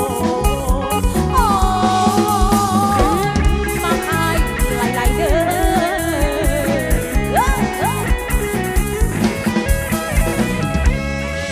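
Lam sing band music from a live show: a plucked electric lead line with bending, gliding notes over a steady drum-kit beat.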